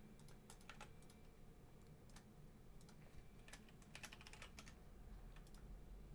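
Faint typing on a computer keyboard: two short runs of keystrokes, about half a second in and again around four seconds in, with a few lone key clicks between.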